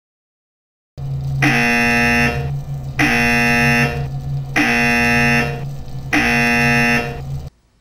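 Electronic alarm tone sounding four times, about every one and a half seconds, over a steady low electrical buzz; both start abruptly and cut off together.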